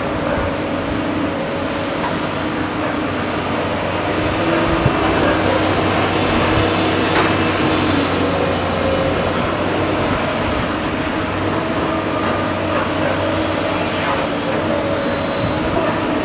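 Diesel engine of a JCB tracked excavator running steadily under load as it digs and swings a bucket of mud, its note lifting slightly about four seconds in.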